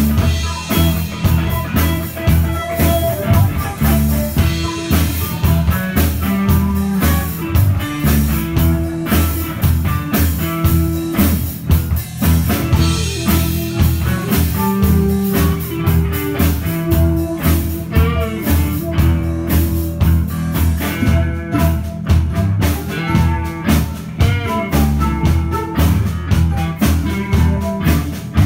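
Live rock band playing an instrumental passage: flute over electric guitar, bass and drum kit.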